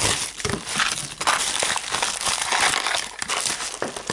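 Bubble-wrap packaging crinkling and rustling in the hands as it is unwrapped, with irregular crackles throughout.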